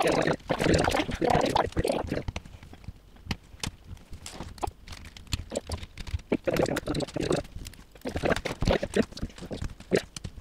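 Small plastic Lego Technic pieces clicking and rattling as they are handled, sorted and pushed together: a string of short sharp clicks with spells of rummaging.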